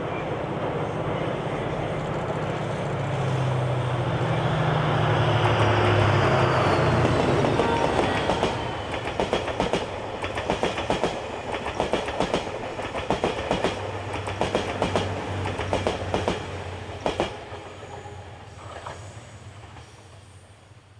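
Seven Stars cruise train passing: a diesel locomotive's engine hum grows louder and drops in pitch as it goes by, then the coaches' wheels click rapidly over the rail joints, fading away as the train leaves.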